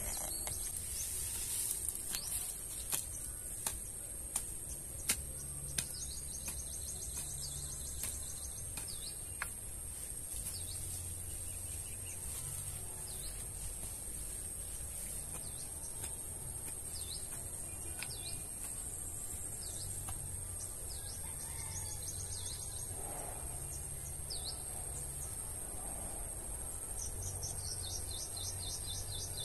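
Outdoor field ambience: insects droning steadily at a high pitch, with birds chirping again and again. A handful of sharp clicks come in the first ten seconds.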